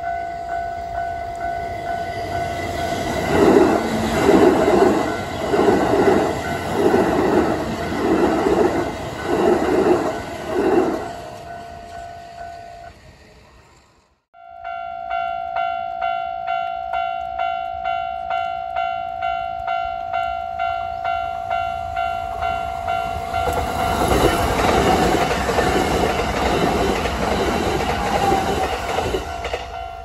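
Electronic level-crossing warning bells ringing in a steady fast beat while a train passes, its wheels clacking rhythmically over the rail joints. The sound cuts off abruptly about halfway through, then another crossing's bells ring and a second train passes near the end.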